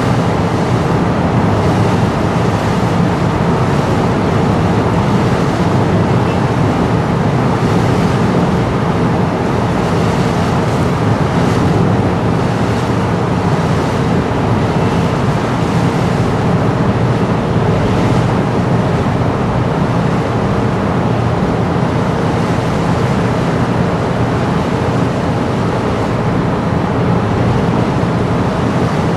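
Car ferry's engine running steadily, heard from on board as a continuous low hum, under the rush of water along the hull and wind on the microphone.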